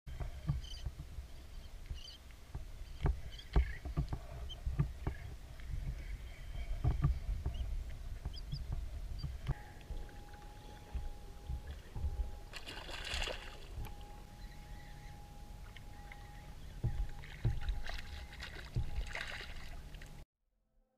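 Choppy water lapping and slapping against the hull of a small craft, with frequent short knocks over a low rumble; it cuts off abruptly near the end.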